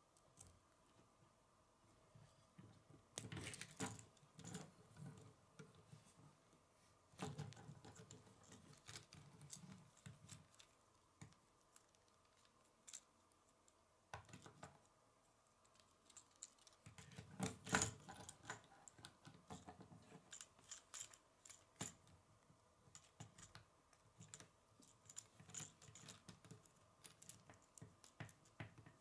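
K'nex plastic rods and connectors being handled and snapped together: scattered light clicks and rattles in several clusters, the loudest a sharp click about eighteen seconds in.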